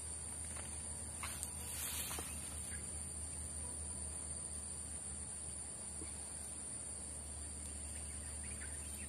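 Insects keeping up a steady high-pitched drone over a low, even rumble, with a few faint clicks and rustles.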